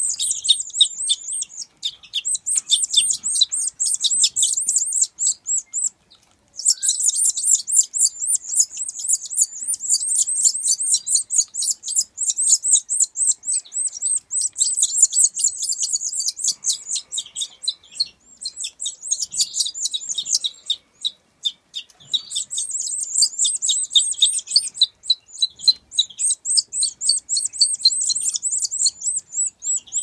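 Young parrot crossbill begging: rapid, continuous high chirping that breaks off briefly twice.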